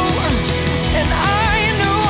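Background music: a love song with guitar and a wavering melody line, in a gap between sung lines.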